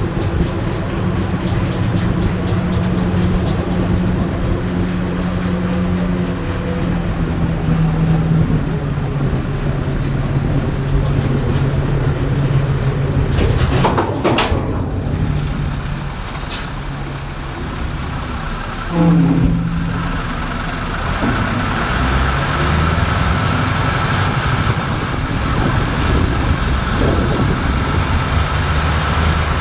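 Heavy truck's diesel engine running, its pitch rising and falling as the engine speed changes. A short hiss comes about 14 seconds in and a brief louder burst near 19 seconds, and a steady higher whine joins from about 22 seconds.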